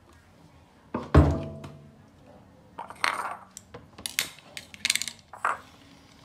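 Kitchen items being handled on a countertop: one loud knock about a second in, with a short ringing hum, then light clicks, clatters and scrapes as a plastic colander basket is set down and shifted.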